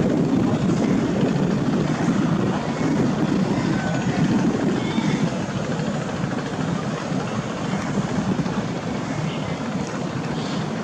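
Steady low rumble of a river passenger launch's engines, with rushing water from the hull pushing through choppy waves.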